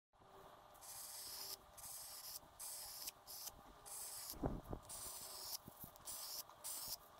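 Stick of homemade charcoal scratching across paper in a series of short strokes, each a quiet, dry hiss with brief pauses between. A couple of soft knocks come about four and a half seconds in.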